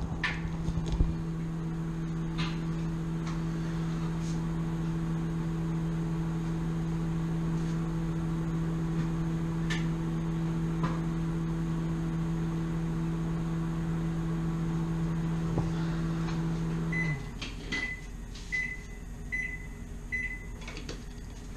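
Microwave oven running with a steady hum. About 17 seconds in, the hum cuts off and the microwave gives a string of short, high beeps, signalling that the heating cycle has finished.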